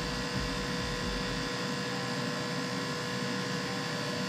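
Steady electrical hum with a low rumble for about the first second and a half.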